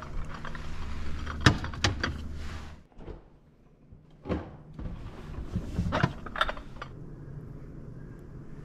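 Kitchen handling sounds: sharp knocks and clinks of dishes and small glass jars being set down and moved, and a refrigerator door being opened and shut. A cluster of knocks comes early, then a short quiet gap, then more knocks and clinks.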